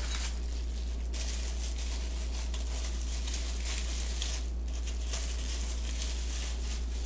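A plastic wrapper crinkling and rustling as it is handled and pulled at, in several stretches with short pauses, over a steady low electrical hum.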